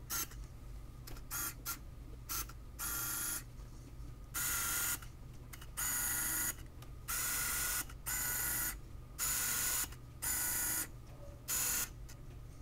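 Pentax 645N autofocus motor driving the freshly repaired gears of a 75mm f/2.8 FA lens in a dozen or so short whirring runs, most about half a second long, back and forth as it hunts for focus in low light and close to its subject.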